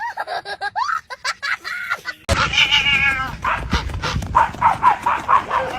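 A series of short, high-pitched animal cries. About two seconds in, the background suddenly gets louder; a longer falling cry follows, then quick repeated cries, about three a second.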